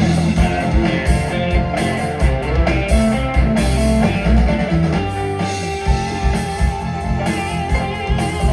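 Live rock band playing, with guitars, bass and drum kit. A sustained lead line comes in about halfway through.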